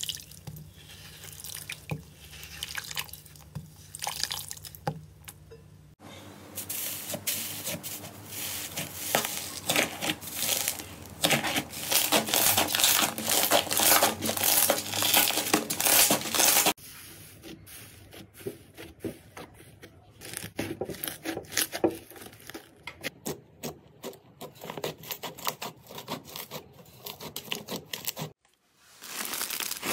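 Slime being squeezed and kneaded by hand: dense wet crackling, clicking and squishing. The sound changes abruptly about 6 seconds in and again about 17 seconds in as different slimes are worked, and is loudest while the glossy teal slime is kneaded.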